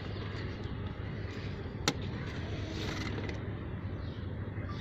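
Steady outdoor background noise with a constant low hum, broken by one sharp knock about two seconds in.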